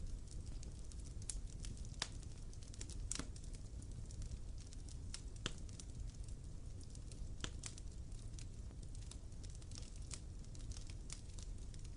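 Wood fire crackling, with irregular sharp pops and snaps a few times a second over a steady low rumble.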